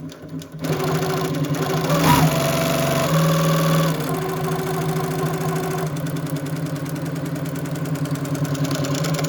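Ergosew 867 walking-foot industrial sewing machine with a direct-drive motor running at speed, stitching felt binding onto carpet through a synchronized binding attachment. It gives a steady, fast stitching rhythm.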